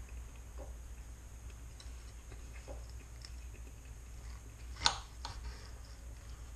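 Quiet eating sounds: faint chewing and soft clicks of a knife and fork cutting a pork chop on a plate, with one sharp clink of cutlery against the plate about five seconds in.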